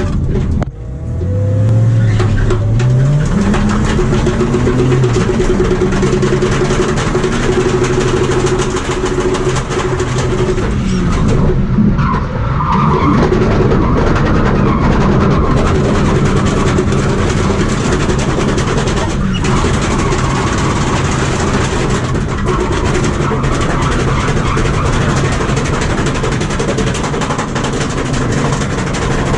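Ford AU Falcon XR6's straight-six engine heard from inside the cabin, revving up hard from about a second in and then held at high revs, with a drop in revs around ten seconds. Tyres skid as the car slides sideways.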